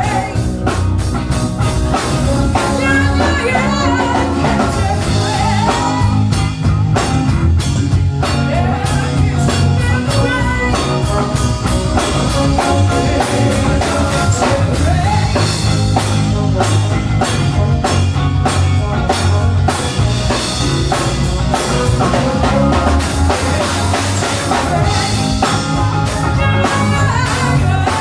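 Rock music with a drum kit, guitar and singing, playing steadily.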